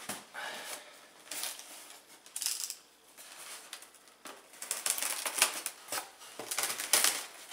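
Cardboard and plastic packaging being handled and opened: a few short rustles, then a busy run of clicks, crackles and knocks from about halfway.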